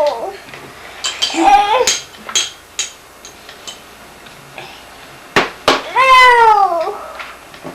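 Cat meowing twice: a short wavering meow about a second and a half in, then a long meow that falls in pitch about six seconds in, with scattered clicks and knocks between.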